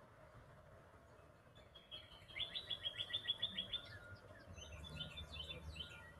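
Wild songbirds calling: a fast, even trill of about a dozen high notes, then a jumble of short chirps near the end.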